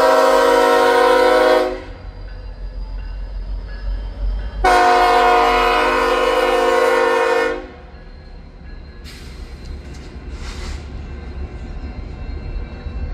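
BNSF diesel locomotive's air horn sounding a multi-note chord in two blasts, a shorter one and then one of about three seconds, the crossing warning at a grade crossing. A low train rumble runs beneath and continues after the horn stops.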